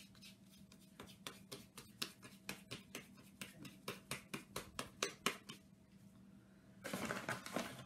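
Soft dough ball being patted and slapped between floured palms, a quick run of light slaps about three or four a second that stops about five and a half seconds in. Near the end comes a short scuffing noise as hands work on the floured table.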